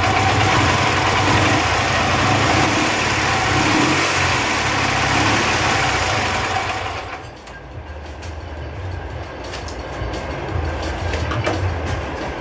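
Dnepr MT-10-36's flat-twin engine running loudly, then dropping sharply about seven seconds in to a quieter, uneven idle with scattered ticks. The engine is running unevenly with a knock, which the owner means to chase by checking the ignition and adjusting the valves.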